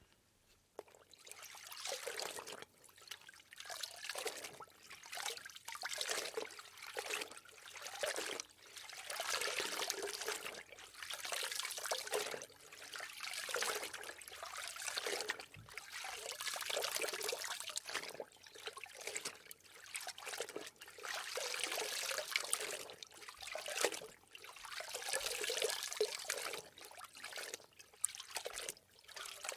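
A series of soaking-in-water sounds: repeated bursts of trickling, sloshing water, each a second or two long, with short breaks between them.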